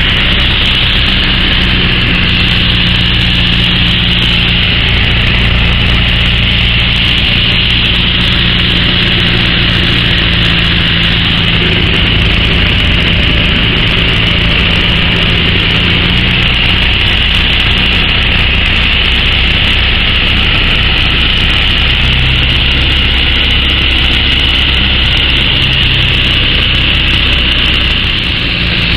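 Piper PA-38 Tomahawk's four-cylinder Lycoming engine and propeller running steadily, heard loud from inside the cabin during the descent to land. The engine note shifts about halfway through.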